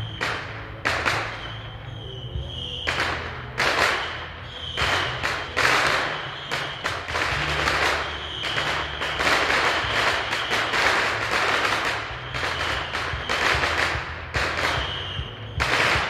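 Fireworks and firecrackers going off: many sharp bangs and crackles at an irregular pace, coming thick and fast through the middle.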